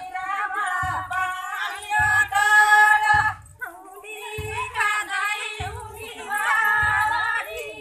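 A group of women singing a Banjara devotional song together, with a low thump keeping time about once a second. The singing breaks off briefly about halfway through.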